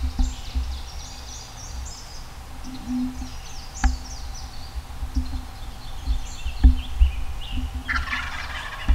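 A wild turkey gobbling, a rapid rattling call near the end, over songbirds singing throughout. A low rumble and a couple of sharp clicks sit underneath.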